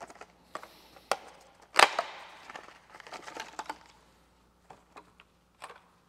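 Clear plastic packaging bag crinkling and crackling as it is handled and opened, with sharp snaps and clicks; the loudest snap comes a little under two seconds in.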